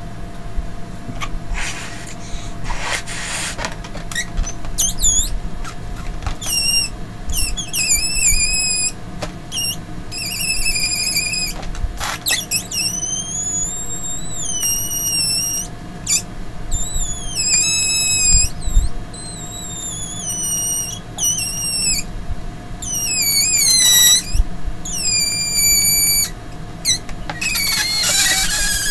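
A series of very high-pitched squealing calls, long gliding tones that bend up and down one after another, with a few short hissing bursts between them.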